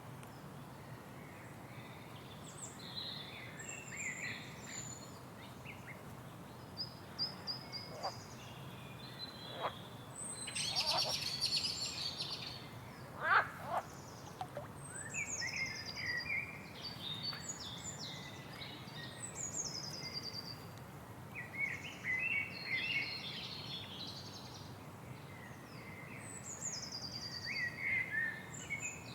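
Several birds calling and singing, with short trills, chirps and whistled notes in quick succession and a busier burst of calls about halfway through, over the steady low rush of a waterfall.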